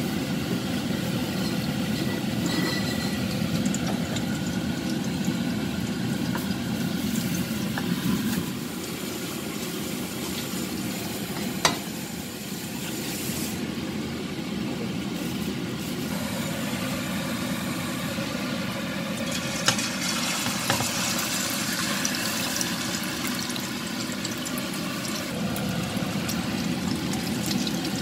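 Ground pork and egg patty sizzling steadily as it fries in oil in a pan. Two sharp clicks of the spatula against the pan stand out partway through.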